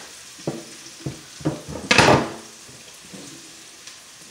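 Eggs being cracked and handled at a bowl: a few short knocks and one louder, longer clatter about two seconds in, over the faint steady sizzle of vegetables sauteing in a pan.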